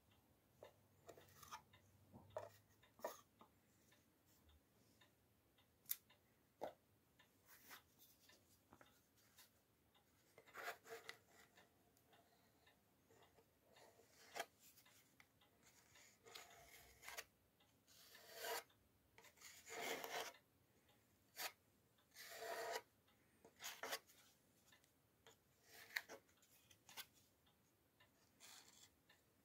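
Metal putty knife spreading and scraping filler paste over a wooden cabinet top: faint, intermittent scraping strokes, most of them in the middle of the stretch, with a few light clicks and taps between them.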